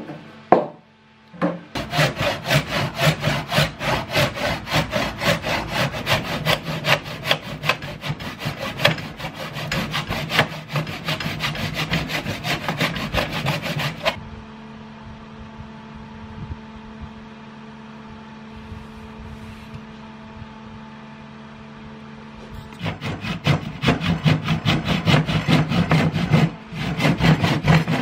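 Hand saw cutting a pallet-wood board held in a bench vise, in quick, even back-and-forth strokes. The sawing stops for several seconds about halfway, leaving a steady hum, then starts again near the end.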